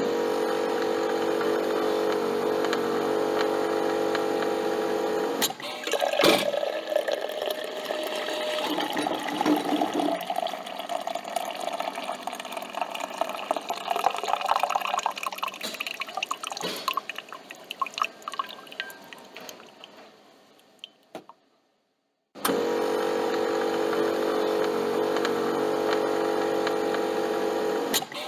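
Coffee machine's pump humming steadily, then a click and liquid gurgling and dripping as the coffee runs, trailing off to silence. The pump hum starts again a second or so later.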